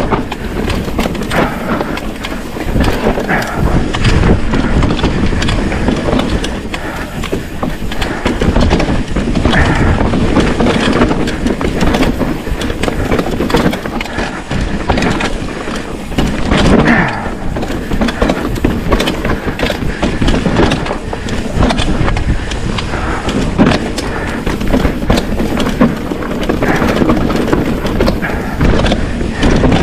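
Trek Slash full-suspension mountain bike descending a rough dirt trail: Bontrager Kryptotal tyres rolling and crunching over dirt and loose stones, with a continuous rumble and frequent knocks and clatter from the bike over bumps.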